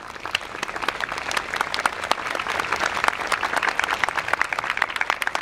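Audience applauding: many hands clapping at once, starting up suddenly and then holding steady.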